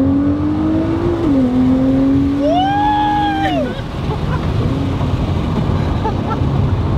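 Nissan R35 GT-R's twin-turbo V6 accelerating hard, heard from inside the cabin. Its note climbs, drops with an upshift about a second in, climbs again, then falls away as the throttle lifts about three and a half seconds in, leaving low engine and road rumble.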